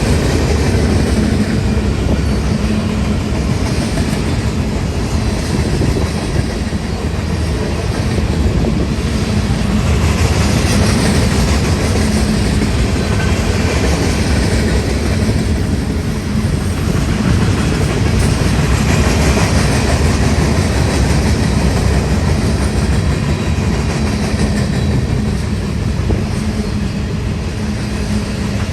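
A train rolling past: a steady, loud rumble of wheels on the rails with no horn.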